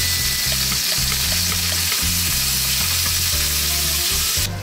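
Pork and kimchi sizzling as they stir-fry in a small rectangular pan over a gas flame, turned with chopsticks. The sizzle drops away suddenly near the end.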